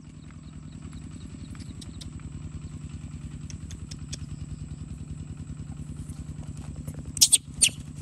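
Small motorcycle engine idling with a steady fast low pulse, growing a little louder over the first few seconds. A few sharp clicks sound near the end.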